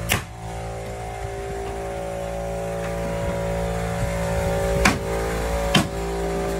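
Pneumatic framing nailer firing three sharp shots: one right at the start, then two about a second apart near the end. A steady motor drone runs underneath and grows slightly louder.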